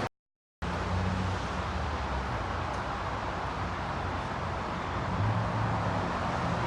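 Steady running noise of a car on the road, a low drone under an even rushing hiss, cutting out briefly just after the start.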